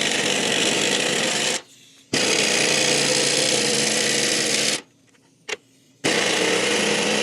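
Impact wrench with a deep 3/4-inch socket hammering on a leaf-spring U-bolt nut in three bursts of two to three seconds each, separated by short pauses; the rusted-on nut does not break loose.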